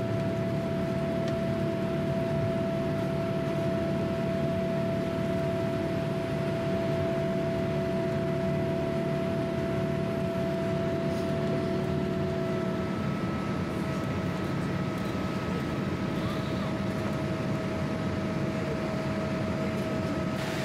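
Cabin noise of a Boeing 787 Dreamliner climbing out after takeoff: a steady rush of jet engine and air noise with a few held tones, two of which drop out about two-thirds of the way through.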